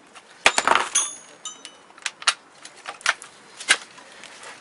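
Sharp metallic clicks and clinks as steel drill bits and chisels are handled and fitted into the chucks of Makita rotary hammers, about seven separate clicks with a brief high ring from the steel about a second in.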